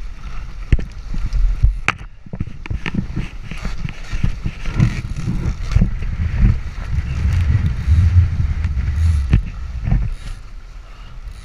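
Strong wind buffeting the microphone and water rushing past the hulls of a Nacra 14 catamaran sailing at speed. The rumble is heaviest from about seven to nine seconds in. Scattered sharp knocks and slaps run through it.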